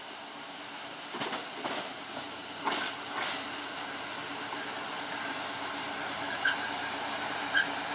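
KiHa 54 diesel railcar pulling in to a station and slowly getting louder as it comes nearer. A few sharp rail-joint clicks come in the first half, and two short squeals near the end.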